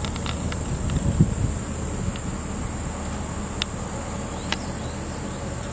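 Insects trilling steadily at a high pitch over a low steady rumble, with a brief low thump about a second in.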